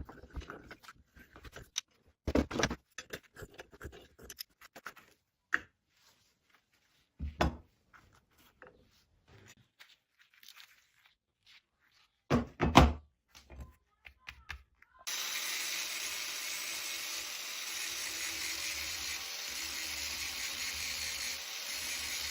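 Workshop clanks and knocks of metal parts being handled, with three louder thuds. About fifteen seconds in, a steady, even noise starts abruptly and keeps going.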